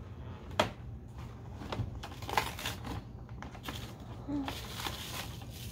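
Toy packaging and small doll accessories being handled and unwrapped: scattered light rustles and clicks, with a sharp click about half a second in and another about two and a half seconds in.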